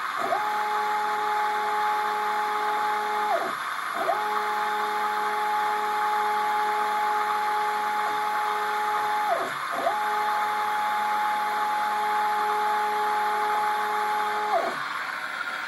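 Stepper motors of a homemade drawer-slide CNC machine whining through three moves. Each rises quickly to a steady pitch, holds for three to five seconds, then drops away, with a short pause between moves. A steady rushing motor noise runs underneath.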